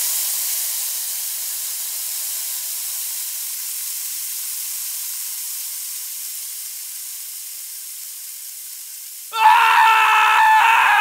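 A steady hiss of dry sand pouring onto sand, slowly fading. About nine seconds in it gives way to louder electronic music with pitched tones that glide downward near the end.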